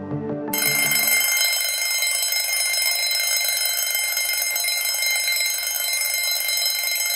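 Alarm clock ringing steadily and loudly, starting about half a second in as the background music stops: the countdown has reached zero.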